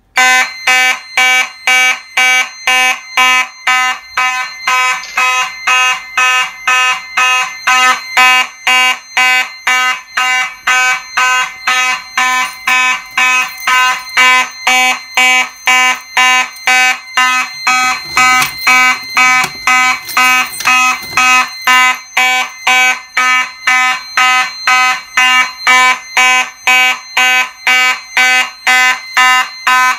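Fire alarm horn sounding in even, rapid pulses, about two a second: the system is in alarm after its T-bar manual pull station was pulled.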